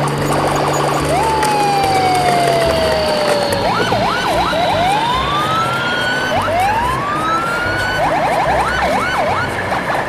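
Siren-like electronic sound effects: a long falling whistle about a second in, then quick up-and-down warbles and slow rising sweeps, with the warbles coming back near the end, over a steady background.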